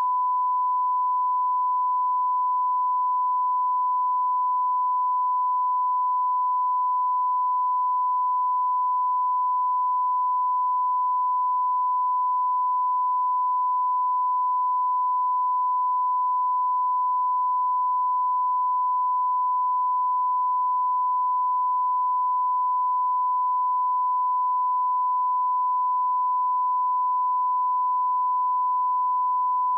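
Broadcast line-up test tone, the standard 1 kHz reference tone that goes with colour bars: one steady, unbroken pure beep at a single pitch.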